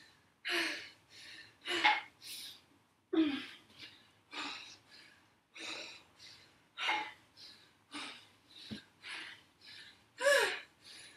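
A woman breathing hard from exertion, with quick gasping breaths about one or two a second, a few of them voiced.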